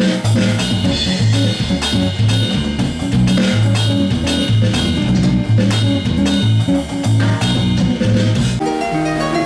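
An electric bass guitar and an electronic drum kit jam together: a repeating bass line over a steady beat of drum hits. Near the end the bass and drums give way to a harp playing plucked notes.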